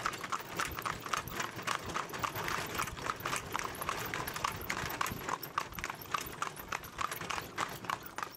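Hoofbeats of a Welsh pony trotting on a tarmac road: a quick, even clip-clop with several sharp hoof strikes a second.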